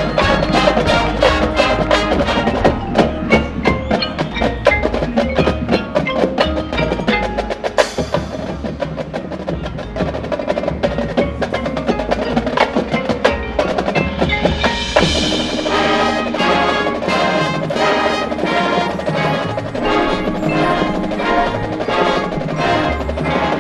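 High school marching band playing its competition show, with the percussion prominent: mallet keyboards, chime-like bells and woodblock strokes over drums in a dense, steady rhythm. A sharp accent comes about eight seconds in, and a bright, shimmering wash builds around fifteen seconds in.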